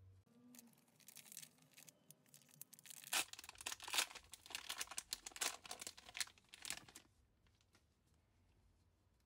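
Foil trading-card pack wrapper crinkling as it is handled, then torn open with a run of sharp crackling rips from about three seconds in, dying down after about seven seconds.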